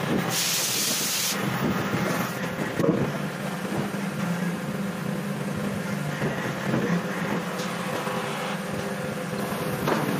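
Heavy hydraulic forging machinery running with a steady hum, with a burst of hiss about a second long near the start and a few short metal knocks as the manipulator handles the hot steel billet.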